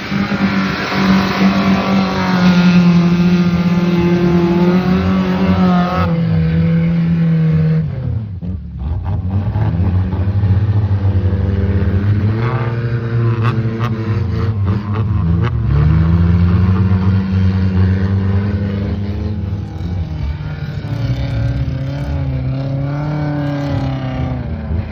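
Off-road 4x4 vehicle's engine revving hard under load, its pitch rising and falling again and again, with a short drop about eight seconds in.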